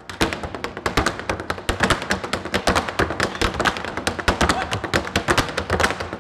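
Two dancers' tap shoes striking a wooden tap board in a fast, dense stream of taps and heavier heel thuds.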